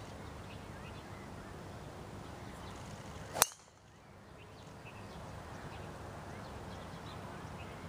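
A golf driver striking a teed ball: one sharp crack about three and a half seconds in, over steady outdoor background noise.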